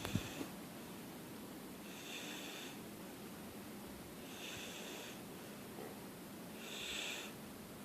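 Snoring during sleep: slow, hissing breaths, about one every two and a half seconds, four in all. A short click sounds just after the start.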